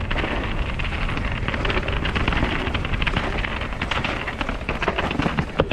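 Mountain bike ridden fast down a trail: wind rushing over the rider's camera microphone, with the tyres and bike rattling and knocking in many quick clicks over the rough ground.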